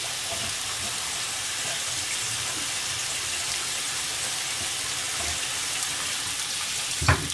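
Mini hamburger patties sizzling steadily in a frying pan. A short knock comes near the end.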